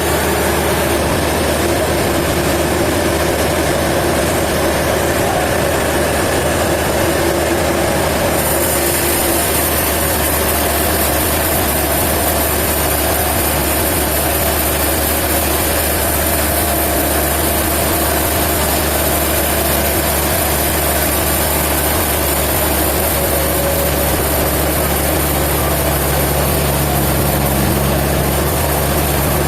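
Heavy machinery running steadily, a constant low engine hum under an even mechanical noise.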